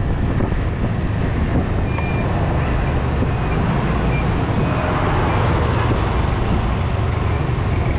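Riding a Yamaha 125 cc scooter at low city speed: a steady rush of wind on the microphone over the scooter's running engine and the surrounding traffic. A few faint short beeps come through in the first half.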